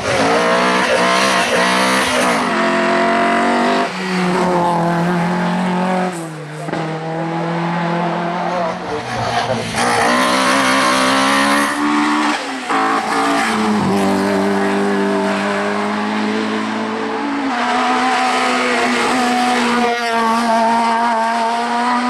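Hillclimb racing cars, among them an Opel Kadett C, taken one after another at full throttle: engines revving high, dropping and climbing again with each gear change through the bends.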